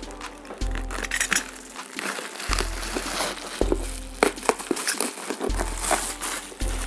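Packaging crinkling and crackling as a glued gift parcel is pulled open by hand, over background music with a steady repeating bass note.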